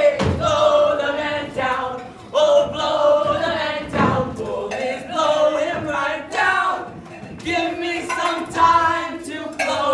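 A stage cast singing together in chorus, several voices at once.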